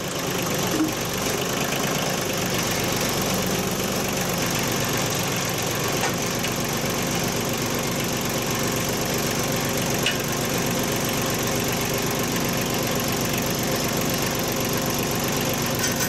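Yanmar YM2510 compact tractor's diesel engine starting up and then running steadily while its front forks lift a heavy log.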